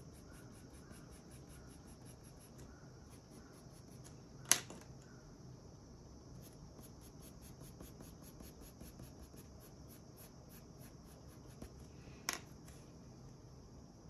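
Faint scratching of a colored pencil on paper in quick, even back-and-forth shading strokes, about four or five a second, pausing now and then. Two sharp clicks stand out, about four seconds in and again near the end.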